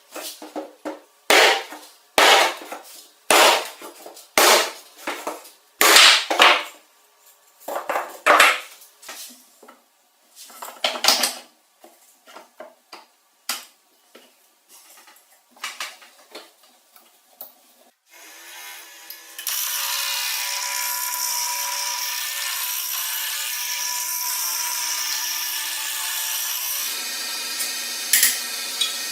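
A hand tool worked in uneven strokes on wood, about one stroke a second, then a power tool running steadily for the last ten seconds, its sound shifting near the end.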